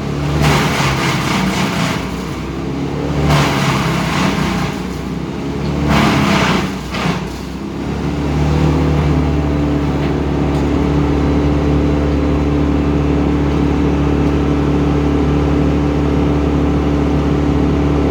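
A large engine runs loudly, with several loud noisy surges in the first eight seconds, then settles into a steady, even run.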